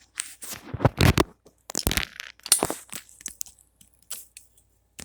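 Handling noise from gear being picked up and moved: a string of knocks, clicks and crunches, the loudest about one and two seconds in.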